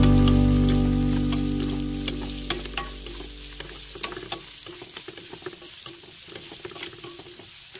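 Sliced carrots and onion sizzling in hot oil in a nonstick wok while a wooden spatula stirs them, with scattered clicks and scrapes of the spatula on the pan. Background music fades out over the first few seconds.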